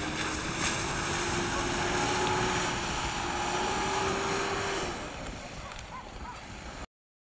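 Hyundai Terracan SUV engine running at steady high revs under load in deep water, its pitch creeping slowly upward. The engine note falls away about five seconds in, and the sound cuts off abruptly near the end.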